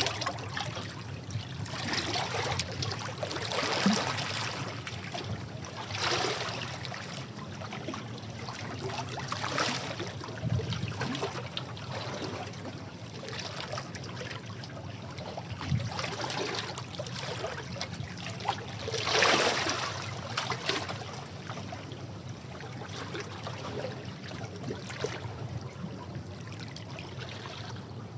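Sea waves washing over rocks, a steady wash of water with surges every few seconds, the largest about four seconds in and just past the middle.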